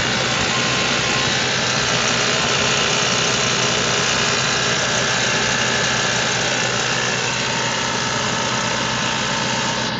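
Audi A3 1.8 (92 kW) four-cylinder petrol engine idling steadily, with a noise the owner finds strange and is asking about.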